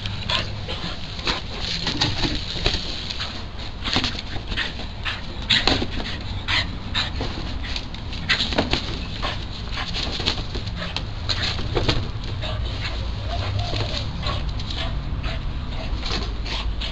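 A dog playing, with many irregular sharp clicks and scrapes throughout over a steady low hum.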